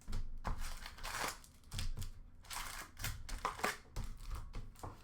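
Upper Deck hockey card packs being opened and the cards handled: wrapper crinkling and cards rustling, in irregular spurts with small clicks.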